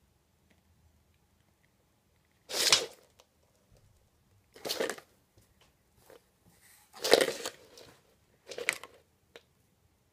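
Springer spaniel making four short, breathy huffing noises, each about half a second long and a couple of seconds apart.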